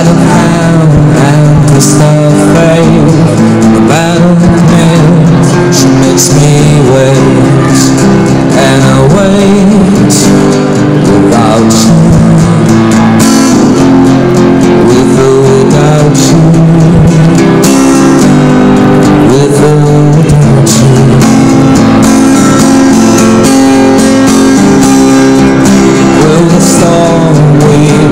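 Street busker strumming chords on an acoustic guitar while singing into a microphone.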